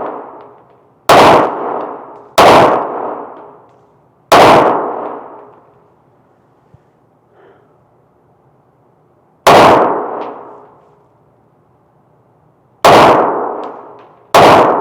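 Six handgun shots at an irregular pace, three in the first few seconds, then a pause of about five seconds, then three more, each report followed by a long echoing decay.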